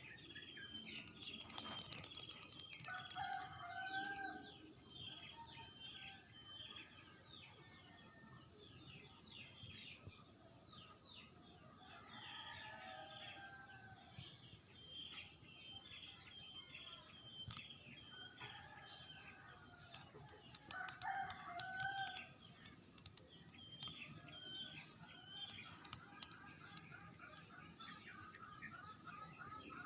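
A rooster crowing three times, about 3 s, 12 s and 21 s in, over a steady high-pitched insect drone and frequent short bird chirps.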